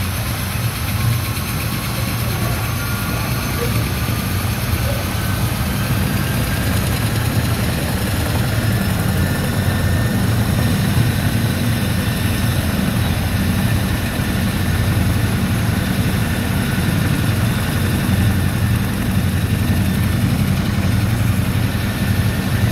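CH-47 Chinook tandem-rotor helicopter running on the ground: a loud, steady low rotor and engine drone with a faint turbine whine that rises slightly.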